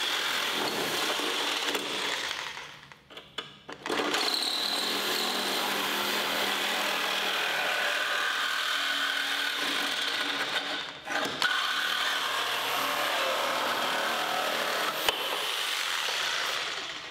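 Corded Makita reciprocating saw cutting through a rusted sheet-steel car floor pan, running steadily in three long spells, with a pause of about a second and a half starting two and a half seconds in, a brief stop about eleven seconds in, and stopping near the end.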